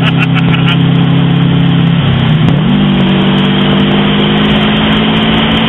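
Turbocharged Subaru WRX flat-four engine heard from inside the cabin while driving, over road and wind noise. The engine holds a steady note, then about two seconds in it briefly drops and comes back at a higher pitch.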